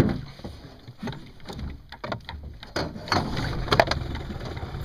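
Scattered knocks and rattles inside an aluminium boat over a low, steady rumble, with a cluster of sharper knocks about three to four seconds in.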